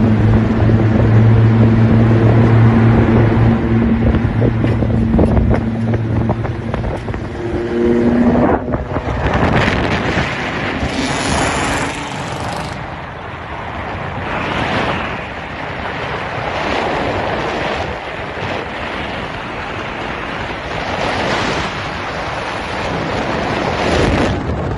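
Lowered Audi's exhaust droning steadily at highway speed. The pitch creeps up, and about a third of the way through the drone breaks off suddenly. After that comes a loud rush of wind and road noise that swells and fades.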